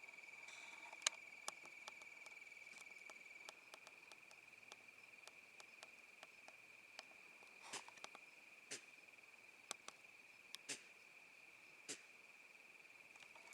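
A doe sneezing: a few short, sharp, faint puffs of breath, scattered through the second half, over a steady faint high thin tone and light scattered clicks.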